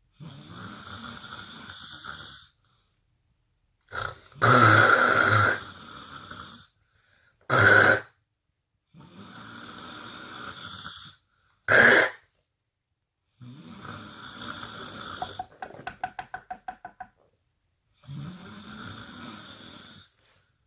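Snoring, one breath after another with short silences between them. Two of the breaths are short, loud snorts, and one near the end breaks into a fast, rattling flutter.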